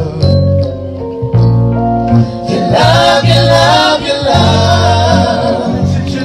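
Gospel vocal group singing in harmony: a long held chord, then voices moving through a new phrase from about three seconds in.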